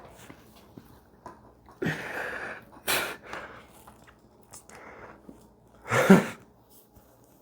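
A patient breathing out hard during a chiropractic back adjustment, with a sharp crack of the joints about three seconds in and a loud, short voiced grunt about six seconds in.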